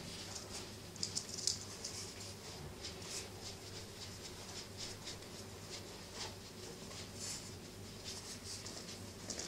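Cloth hand puppets being handled: quiet, irregular rustling and scratching of fabric, with a few sharper ticks about a second in, over a steady low hum.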